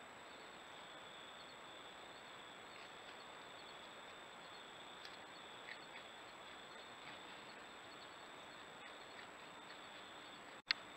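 Faint steady hiss of a trail camera's microphone with a thin high steady tone, a few faint ticks, and one sharp click with a brief dropout near the end where the recording cuts to the next clip.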